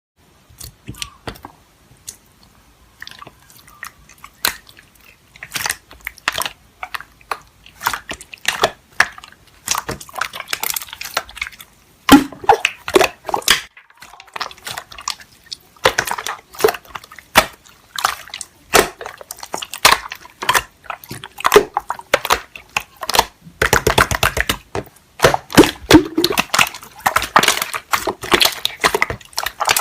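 Slime being squished and pressed by hand, making a run of sticky wet clicks and pops, with a quick burst of crackling about three-quarters of the way through.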